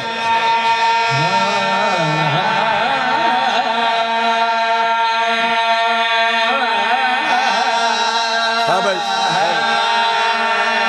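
Men singing a devotional chant through a PA system, with a steady held drone note beneath a wavering solo melody line.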